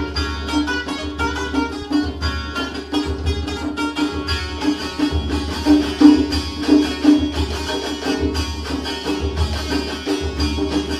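Background folk music: a plucked string instrument playing a fast, busy melody over a steady hand-drum beat.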